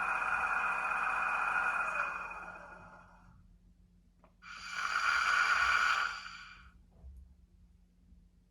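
Compressed-air hissing from an ESU LokSound 5 decoder's sound project for the ÖBB 2016 Hercules diesel locomotive, played through the model's speaker. A steady hiss fades out over the first few seconds. After a faint click, a second hiss lasts about two seconds, and another faint click follows.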